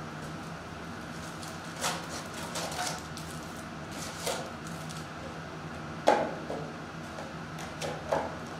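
Cardboard Contenders basketball card box being handled and opened: scattered taps, scrapes and knocks of cardboard and packs, the loudest knock about six seconds in, over a faint steady hum.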